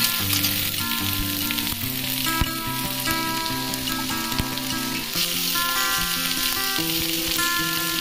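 Chopped vegetables sizzling as they fry in a kadai, with a flat metal spatula stirring them and knocking against the pan a few times. Background music with held notes plays under the sizzle.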